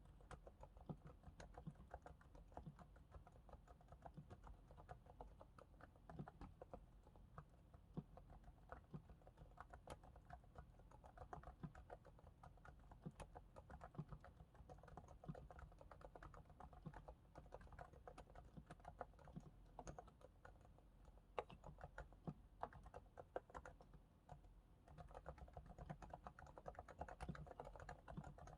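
Realforce R2S keyboard with silenced 45 g Topre capacitive switches, lubricated with Krytox, being typed on continuously: quiet, muffled keystrokes in a steady patter, a little denser near the end.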